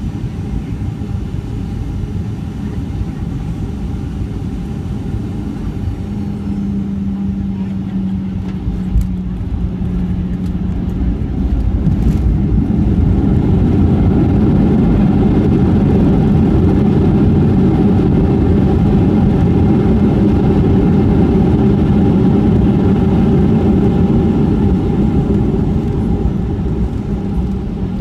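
Cabin noise of a Boeing 737-700 with its CFM56 turbofans during landing: a steady rush with a low hum, a short thump about nine seconds in, then from about twelve seconds the engine noise swells to a loud, steady roar as heavy reverse thrust is applied to slow the jet on a wet runway.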